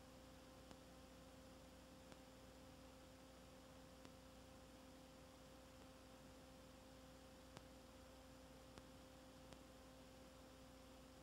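Near silence: a faint steady hum over hiss, with a handful of faint clicks scattered through it.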